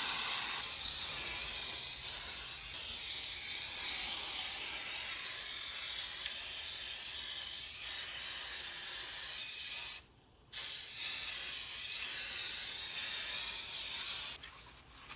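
Aerosol can of silicone spray hissing in a long continuous spray, broken by a short pause about ten seconds in, then stopping shortly before the end.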